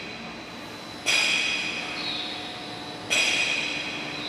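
Running factory machinery on a blown film extrusion line: a sudden hissing burst with a ringing edge twice, about two seconds apart, each fading slowly, over a steady machine hum.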